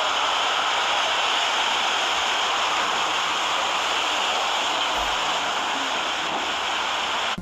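Steady rushing of water, an even noise with no engine or voice standing out.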